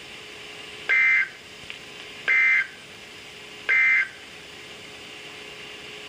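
Emergency Alert System end-of-message signal from a weather alert radio's speaker: three short bursts of digital data screech, each about a third of a second long and about 1.4 seconds apart, marking the end of the alert. A faint steady hum runs under them.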